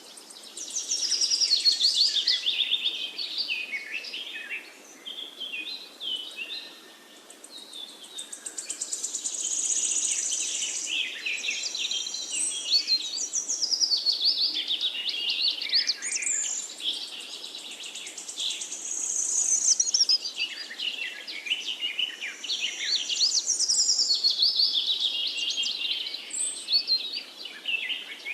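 Several birds singing and calling at once: a dense, overlapping run of quick high chirps and trills that swells and fades in waves.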